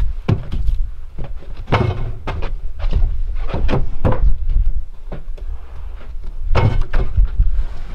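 Irregular knocks, bumps and scrapes of things being moved around inside a small wooden shed, with louder bangs about two seconds in and again near the end, over a steady low rumble of wind on the microphone.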